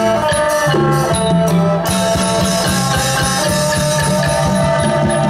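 Isan pong lang folk ensemble playing live: sustained melody notes over a quick, steady percussion beat.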